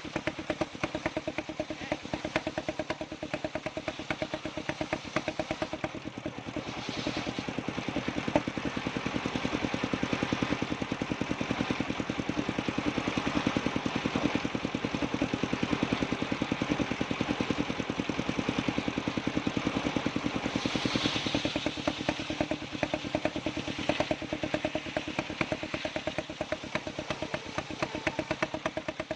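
Engine of a circular sawmill running steadily with a rapid, even beat, with a brighter hiss about seven seconds in and again around twenty seconds in, as the blade cuts through sengon wood.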